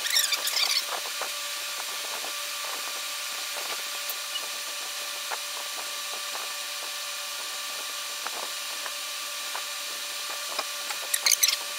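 Pen scratching on paper as lines are drawn: a burst of scratchy strokes at the start and another near the end, with faint ticks and a steady hiss in between.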